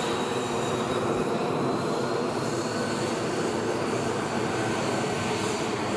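F-35B fighter's jet engine running at taxi power: a steady jet rush with a thin high whine that edges slightly up in pitch.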